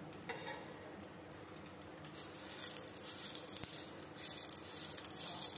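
Quiet sizzling of an egg roll frying in a little oil on a flat tawa. The sizzle swells about halfway through and again near the end.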